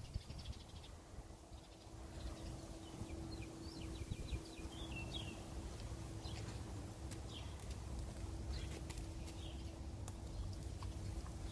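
Faint outdoor ambience: small birds chirping now and then, over a low rumble and a thin steady hum.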